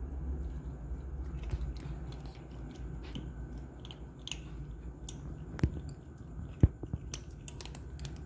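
Cats crunching dry kibble: irregular crunches and clicks, with a couple of sharper ones past the middle.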